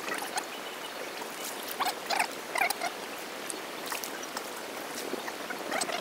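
Pond water sloshing and splashing as people wade chest-deep and haul a fishing net, with scattered small splashes and drips, most of them about two seconds in.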